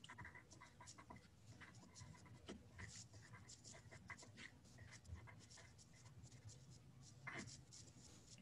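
Faint scratching of writing on paper, in short irregular strokes, over a low steady hum.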